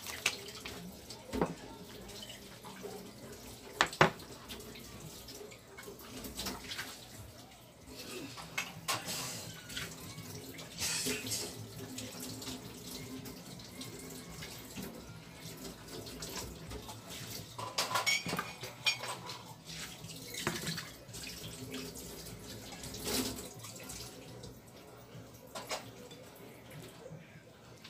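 Hands preparing fish at a plate of flour and a dish of beaten egg: scattered clicks and knocks of the fish and fingers against the plates, with irregular stretches of rustling and wet handling.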